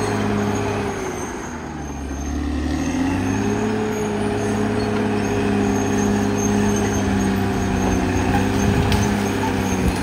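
Caterpillar D6R XL bulldozer's diesel engine running under work. It drops in speed about a second in, picks back up near three seconds, and then runs steady.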